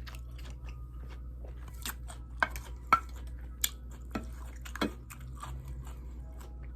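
Close-miked chewing of food: wet smacking with scattered sharp crunches and mouth clicks.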